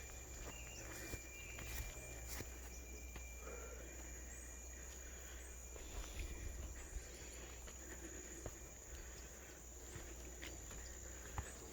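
Footsteps on a country path with scattered light clicks and rustles, over a steady high-pitched insect drone.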